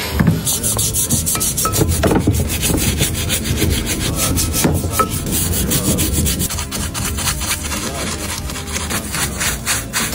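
Rapid, repeated rubbing strokes, several a second, with a few louder knocks: the disassembled steering rack's parts being scrubbed clean.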